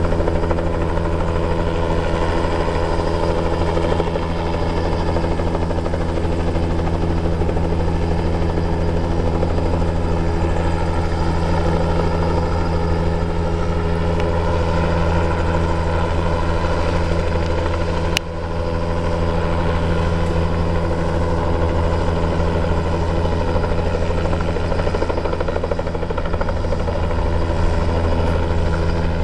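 Small helicopter hovering, its rotor and engine making a loud, steady drone with a deep, even throb.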